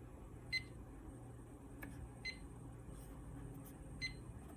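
Fire alarm control keypad giving three short key-press beeps, about a second and three quarters apart, as the walk-test event list is paged through. A faint steady hum sits underneath.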